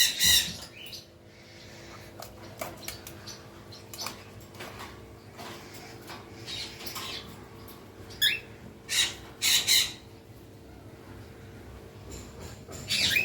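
Rose-ringed parakeet giving short, high squawks and chirps now and then, with a quick run of calls about two-thirds of the way through and another near the end.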